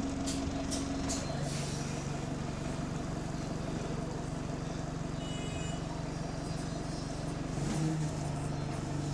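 Bus engine running under way, with a steady drone that shifts pitch about a second in and again near the end as the revs change. The bus has an exhaust leak. A few sharp clicks come in the first second or so, and brief high tones sound around the middle.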